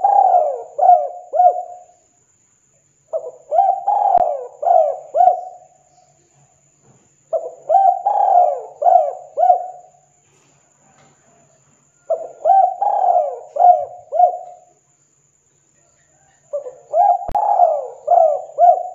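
Spotted dove (tekukur) cooing. It repeats its phrase about every four to five seconds, each a run of four or five quick, bending coos lasting about two seconds, with quiet gaps in between.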